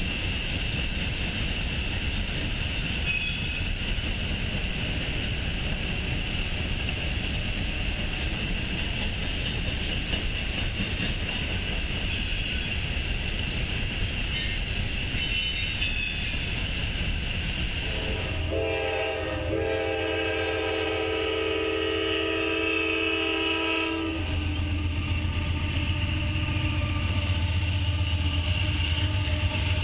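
Freight train rolling past, a string of loaded coal hopper cars, with steady wheel rumble and a fixed high-pitched tone over it. About 18 seconds in, a diesel locomotive's air horn sounds one long chord for about five seconds. Then a low engine drone takes over as a CSX diesel locomotive passes close.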